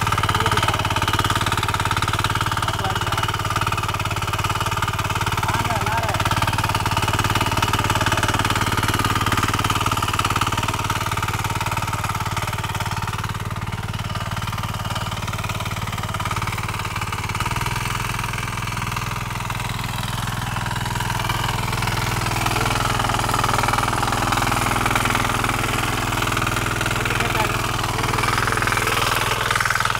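Small diesel engine of a walk-behind power tiller running steadily under load as its rotary tines churn the soil; the engine note shifts slightly a little past halfway.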